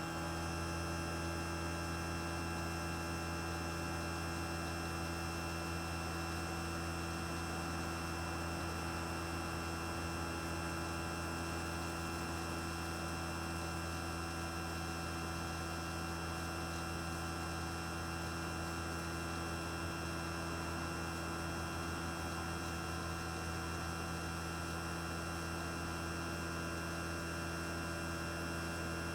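Outdoor unit of a 1995 Toshiba RAS-251ETS air conditioner running in cooling mode: its twin-rotary compressor and fan give a steady hum with several steady tones.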